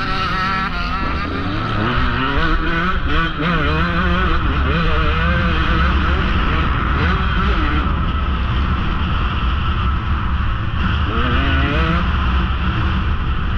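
KTM XC-W 150 two-stroke single-cylinder dirt bike engine revving up and down under the rider, its pitch rising and falling again and again. Wind rumbles on the helmet-mounted microphone beneath it.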